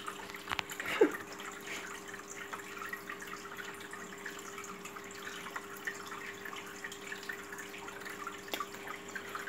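Aquarium water trickling and dripping over a steady low hum, as from a running tank filter.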